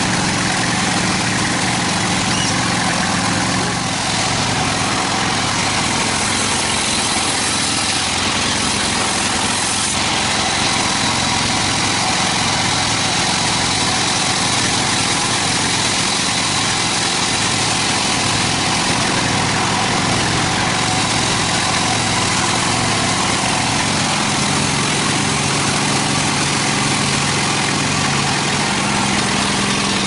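Large vertical band sawmill running steadily, a constant mechanical drone with a faint high whine.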